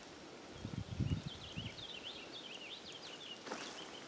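A small bird singing a quick run of short chirps, with a few soft footsteps about a second in.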